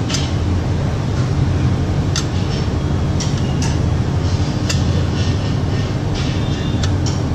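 A hand rubbing and mixing crumbly flour in a stainless steel tray, with rustling scrapes against the steel and a few light clicks. Under it runs a steady low machine hum.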